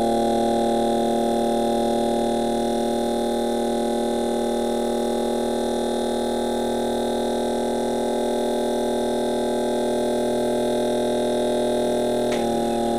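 Small electric motor rig powered by supercapacitors humming steadily, several held tones sounding together, with a click and a change in the hum near the end.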